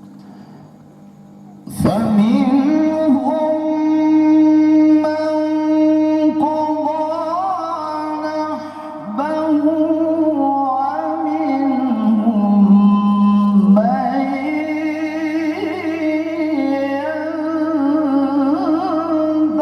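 A man reciting the Quran in the melodic tilawah style, beginning about two seconds in and holding long ornamented notes that slide up and down in pitch, with a short breath pause partway through.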